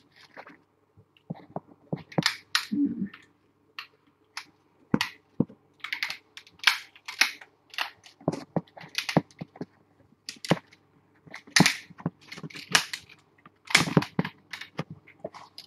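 An irregular series of sharp clicks and cracks, several a second, coming thicker toward the end.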